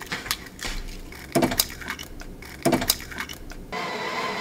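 Eggs knocked against the rim of a glass measuring cup and cracked open: a few light taps, then two pairs of sharp knocks with the shells breaking. Background music comes in near the end.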